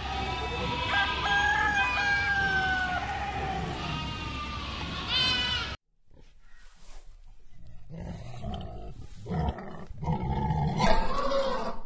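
Goats bleating, with a loud wavering bleat about five seconds in. After a sudden break, a lion growls and grunts low and rough.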